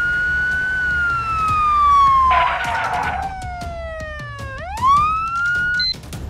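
Ambulance siren wailing: one slow falling sweep from high to low, then a quick rise back up, cut off suddenly near the end. A short burst of hiss is heard about two and a half seconds in, and a few clicks follow.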